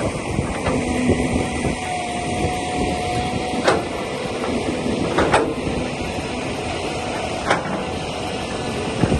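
Heavy earthmoving machinery running steadily, with four sharp knocks or clanks spread through it and a brief whine partway through.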